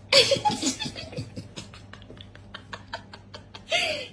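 A person laughing: a loud burst of laughter at the start, short stuttering laughs through the middle, and a second loud laugh near the end.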